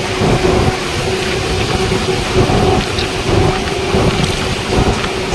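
Wind buffeting the microphone at highway speed, in irregular low rumbling gusts, over a steady engine hum and the tyre noise of trucks running alongside.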